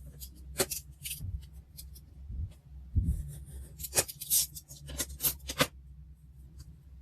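Close-up paper and stationery handling on a diary page: a run of sharp crinkles, taps and rustles, busiest between about three and six seconds in, then falling quiet.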